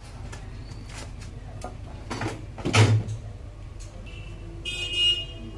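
Clicks, knocks and scrapes of kitchen utensils on a steel tray over a steady low hum. A louder scrape comes nearly three seconds in, and a brief high-pitched squeal comes near the end.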